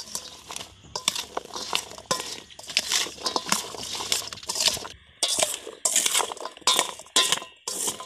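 A steel spoon scraping and clinking against a stainless steel bowl as chopped raw green mango is tossed with turmeric and salt. The strokes come thick at first, then as separate scoops about two a second in the second half.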